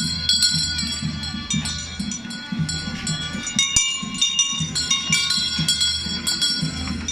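Procession music with bells ringing over and over, high and ringing, above a steady low rhythmic pulse.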